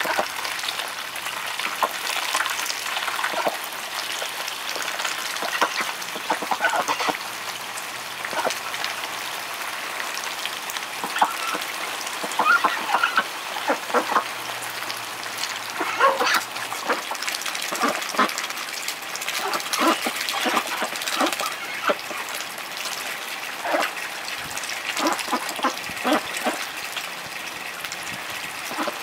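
Domestic ducks dabbling and splashing in a muddy puddle, bills slapping and slurping at the water, with occasional short quacks over the steady run of water from a hose.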